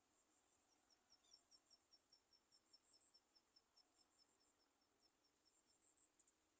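Very faint, high-pitched insect chirping: an even run of short chirps, about five a second, over a steady high buzz. The chirps stop shortly before the end.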